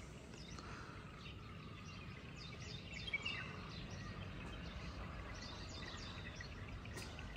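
Birds chirping: many short, quick chirps at several pitches, one louder burst a little past the middle, over a faint, steady low rumble.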